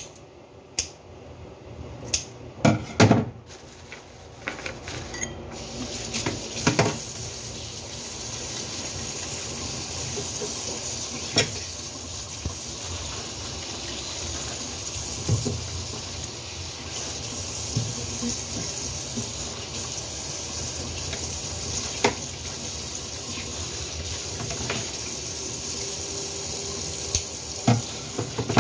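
Sharp clicks and knocks of kitchen scissors and handling in a stainless steel sink, then tap water running steadily into the sink from about five seconds in as fish are rinsed under the stream, with occasional knocks.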